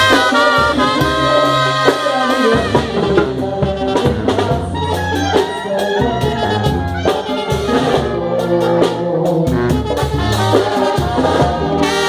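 Mexican banda brass band playing an instrumental passage: trumpets and trombones carrying the melody over low held bass notes.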